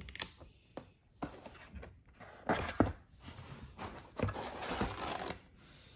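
Paper and cardboard packaging being handled: booklet pages rustling and items shifted in a cardboard box, with a few knocks, the sharpest about two and a half seconds in.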